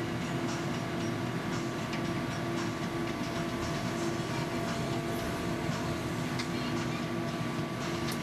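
Sennebogen 880 EQ material handler running, heard inside the operator's cab: a steady machine hum with a pulsing tone and scattered faint clicks.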